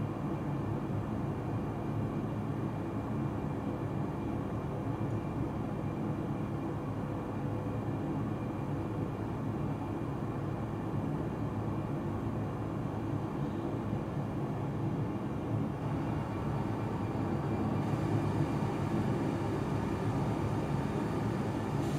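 Flour mill machinery running, a steady low rumble, heard as a film soundtrack over a hall's loudspeakers; it grows slightly louder near the end.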